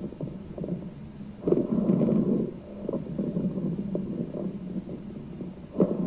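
Recorded rhonchi: low-pitched bubbling, rattling breath sounds heard through both inspiration and expiration, the sign of secretions in the larger airways. Each breath swells louder, about 1.5 s in and again near the end.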